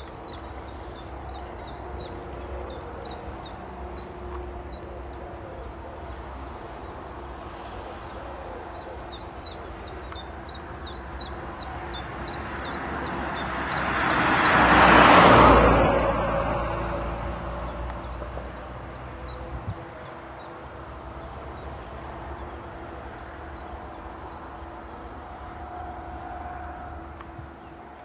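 A vehicle drives past, its noise swelling to a peak about halfway through and then fading. Before it, a small bird sings runs of quick, high, falling chirps, about four a second.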